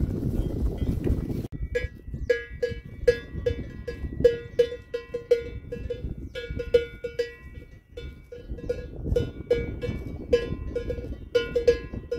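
Wind buffeting the microphone, then from about a second and a half in, cowbells on grazing cattle clanking in quick, irregular strokes over a low wind rumble.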